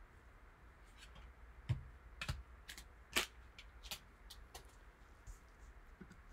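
A string of sharp clicks and taps, the loudest about one and three quarter and three seconds in: a stack of trading cards being handled and tapped down on a table.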